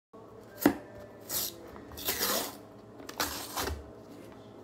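A sharp plastic click from a large protein-powder tub being opened, then several short scraping, rustling strokes as a scoop is worked in the powder.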